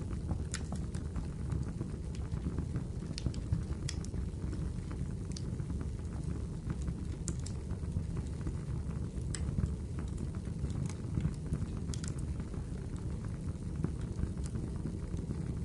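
Wood fire crackling: a steady low rumble of burning with irregular sharp pops and snaps, a dozen or so in all.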